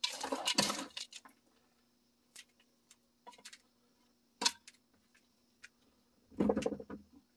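Plastic scoop digging and scraping through gritty potting mix of potting soil and decomposed granite, a brief scratchy rustle, followed by a few scattered light clicks. Near the end there is a second rustle as gloved hands press the soil down around a fig seedling in a plastic pot.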